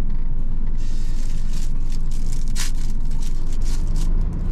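Clear plastic wrapper crinkling in a quick run of short rustles as a pair of chopsticks is unwrapped, over a steady low hum from the parked vehicle, most likely its engine idling.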